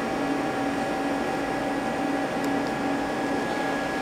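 Steady machine-shop hum from powered-up equipment, with a low tone that pulses on and off about twice a second and a couple of faint ticks in the middle.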